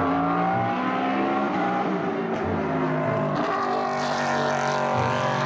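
Aston Martin Vantage GT race car's V8 engine running at high revs through a corner, its note dipping slightly and then climbing again in the second half as it accelerates.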